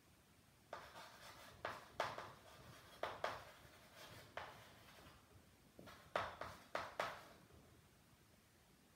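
Chalk writing on a chalkboard: a run of sharp taps and short scratches as words are written, starting about a second in and stopping about two seconds before the end.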